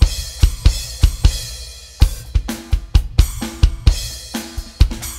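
Roland TD-30 electronic drum kit played with sticks, its module sounding a fast run of kick, snare and drum strokes under a wash of cymbals, some drums ringing with a pitch in the second half.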